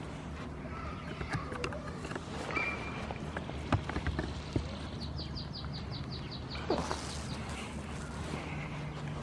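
A young goat's hooves tapping and knocking on wooden boards as it walks and hops, a few sharp knocks spread through, over a low steady hum.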